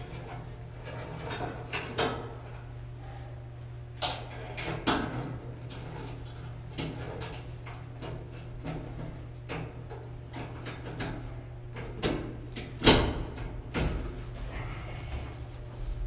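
Scattered metallic knocks and clunks from someone working on a steel ladder in a steel compartment, the loudest about thirteen seconds in. A steady low hum runs underneath.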